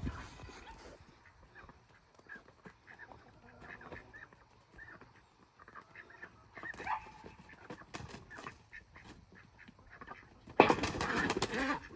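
Ducks quacking now and then, faint at first, then a loud burst of commotion near the end as a duck is caught.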